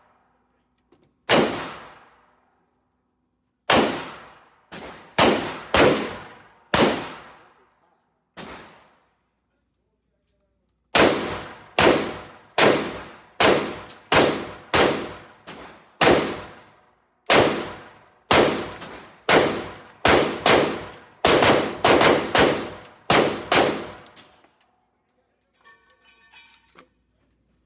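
Gunshots: several single shots spaced about a second apart, a short pause, then a rapid string of about twenty shots at roughly two a second, each with a short echoing tail.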